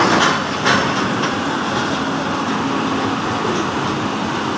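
Excavator boarding a ferry: a steady, heavy mechanical din with a low hum, and a few sharp metallic clanks in the first second or so.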